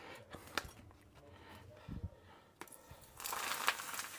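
Poppadoms crackling as they are fried in hot oil, with a few light knocks of a utensil and a dull thump, then about a second of loud crackling near the end.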